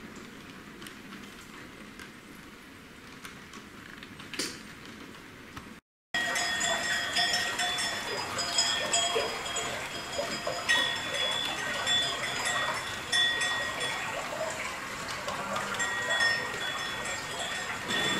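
Steady rain hiss. About six seconds in it cuts to silence, then to cowbells clanking and ringing irregularly, with farm animals around them.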